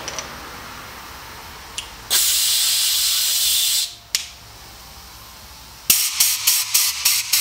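Compressed air blasting from a handheld air blow gun on a newly plumbed, regulated 60 psi shop line being tested: one long hiss about two seconds in, then a rapid string of short blasts near the end.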